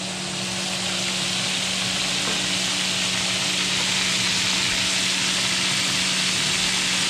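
Flour-coated chicken breasts frying in shallow oil in a pan: a steady sizzle, over a steady low hum.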